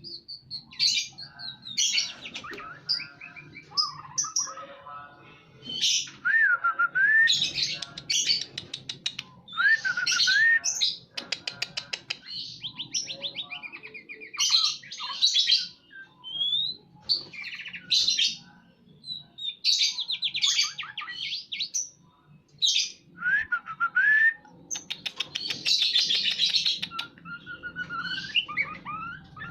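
A white-rumped shama (murai batu) singing in bursts of varied phrases: rapid trills, whistled slurs that rise and fall, and chattering notes, with short pauses between. This vigorous song is that of a bird in breeding condition.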